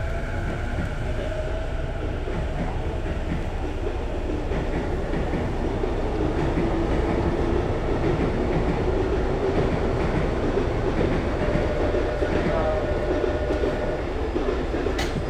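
Sotetsu New 7000 series electric train running, heard from inside a car above its VVVF inverter: a steady rumble of wheels on rail with thin motor and inverter whines that shift in pitch, one rising in the middle. There is a sharp click just before the end.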